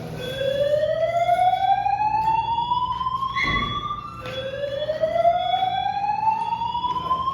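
Building fire alarm sounding a slow whoop: a tone that rises steadily over about four seconds, then drops back and rises again, with a high beeping tone in short pulses over it. A single thump about halfway through.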